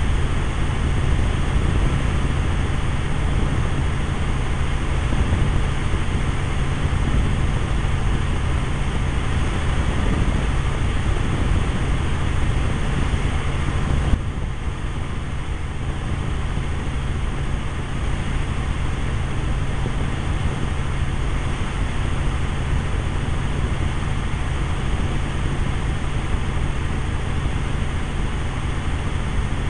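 Steady cabin noise of a helicopter in flight, heard from inside: a constant deep drone of engine and rotor under a rushing hiss. A small click comes about halfway through, after which the noise is a little quieter.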